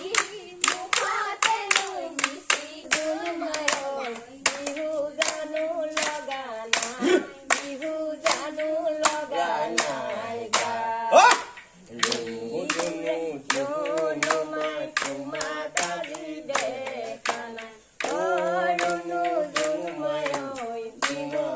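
A group of women singing a Bihu song together, kept in time by hand-clapping at about two claps a second. About eleven seconds in, a voice gives a loud rising whoop.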